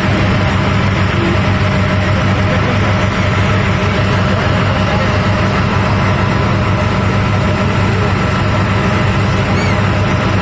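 Steady low drone of an engine running at a constant speed.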